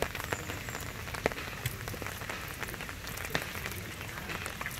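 Rain falling on river water and a wooden boat: a steady hiss with many scattered sharp drop ticks.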